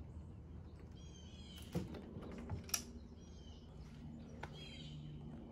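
Songbirds chirping in short falling calls, with a few light knocks and clicks from work on the ambulance body about two seconds in. A faint steady hum comes in near the end.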